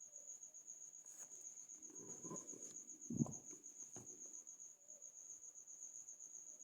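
A cricket trilling steadily in a high, continuous pulsed tone. A soft rustle and a single dull thump come about three seconds in.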